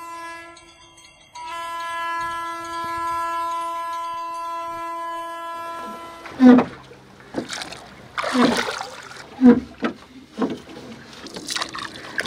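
A sustained electronic tone from a channel intro sting holds for about the first half. It then gives way to bamboo oars being pulled through river water: a splashing stroke roughly once a second.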